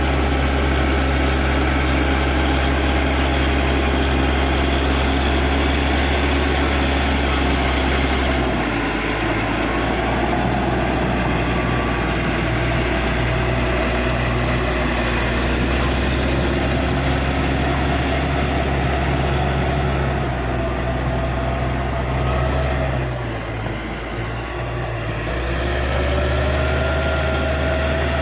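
Caterpillar D6G bulldozer's diesel engine running steadily, its pitch shifting up and down several times as the revs change, with a brief drop in level near the end.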